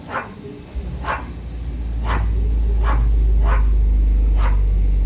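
Two Soundstream X3.12 12-inch subwoofers on a Taramps MD 12000.1 amplifier playing a deep bass tone, kicking in about a second in, swelling and then holding very loud, as the system is run to find its peak frequency. A dog barks about once a second.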